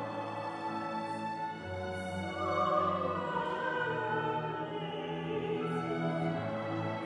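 Classical mezzo-soprano singing a slow, sustained melody with a full symphony orchestra and choir, strings prominent. The voice rises and swells a little over two seconds in.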